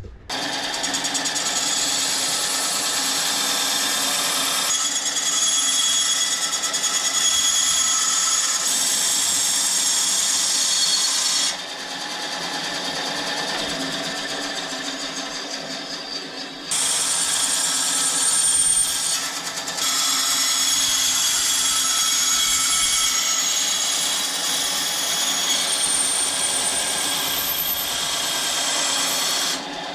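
Power saw cutting through an aluminium spar web, a loud, steady cut with a high whine. It eases off for a few seconds about halfway through, then picks up again.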